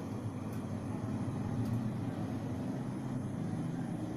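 Steady low rumble of background noise, with no clear source, and a faint tick or two.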